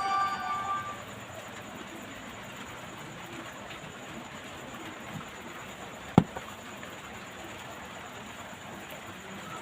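A short electronic tune of stepped tones fades out within the first second. Then there is only a steady hiss, broken by one sharp click about six seconds in.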